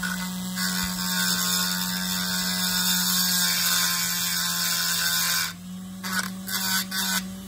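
Dremel rotary tool on a flexible shaft running steadily, its double-cut burr grinding on a nut for about five seconds, then in a few short touches near the end.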